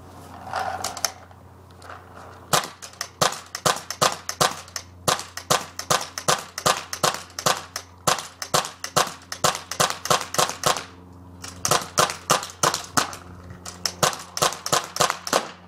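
A WGP Sniper II pump Autococker paintball marker from 2002 firing in rapid succession, about three to four sharp shots a second. The shots begin a couple of seconds in, with a brief pause about eleven seconds in.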